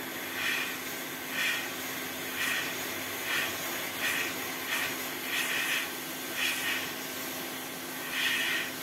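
Hot air rework gun blowing: a steady airy hiss over a low hum, swelling about once a second, while it heats a component on a laptop motherboard to lift it off with a vacuum pickup pen.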